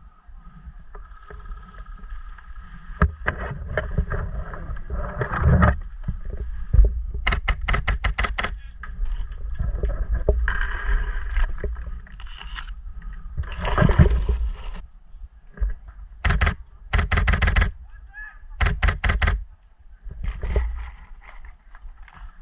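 Airsoft guns firing in several rapid bursts of clicking shots, over low wind rumble on the microphone.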